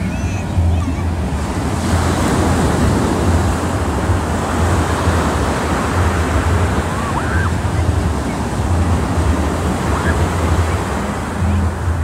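Ocean surf breaking and washing up the beach in a steady wash of noise, with wind buffeting the microphone in a low rumble.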